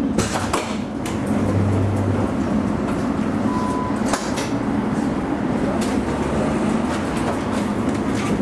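Alstom Citadis tram standing at a stop with its onboard equipment humming steadily, broken by scattered clicks and a short beep about three and a half seconds in.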